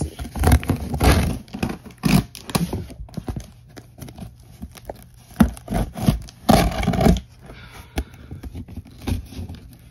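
Blade cutting along the packing tape on a cardboard box, with scraping and tearing strokes at an uneven pace. The strokes are loudest about a second in and again around six to seven seconds in.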